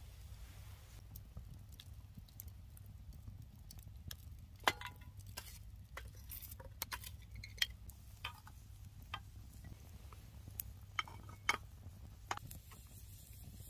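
Camp cookware and utensils being handled: about ten light clicks, clinks and taps scattered through, over a faint steady low rumble.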